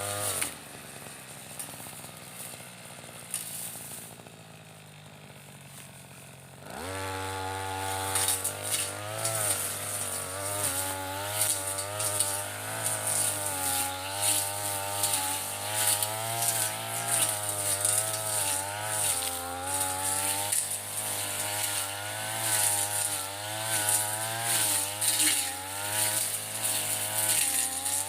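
Mitsubishi TU33 two-stroke brushcutter engine drops to idle, idles for several seconds, then revs up about seven seconds in and runs at high speed, its pitch wavering up and down as the blade takes load cutting ferns.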